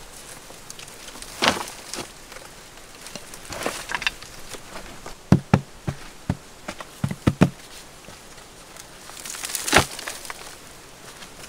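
Loose soil being scooped and scraped by hand into a woven basket: rustling scrapes, a quick run of dull thumps midway, and a louder scrape of dirt near the end.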